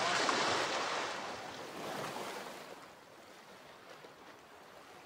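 Small waves washing in on a beach, loudest for the first two seconds or so, then dying down to a faint hiss.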